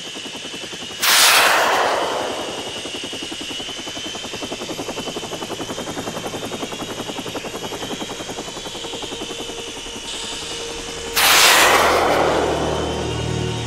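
Toy army helicopter sound effects: a rapid rotor chopping with a thin steady whine, broken twice, about a second in and near the end, by a loud blast that fades away over a second or so.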